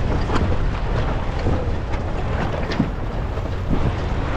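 Wind buffeting the microphone on a sailboat's deck, a steady low rumble, with a few sharp clicks and knocks.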